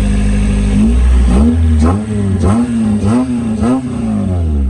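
Honda H22 four-cylinder engine breathing through a big-tube 3-inch header, running loud at a steady pitch. About a second in, it swells up and down in pitch about five times in quick succession, with a sharp crack at each swell.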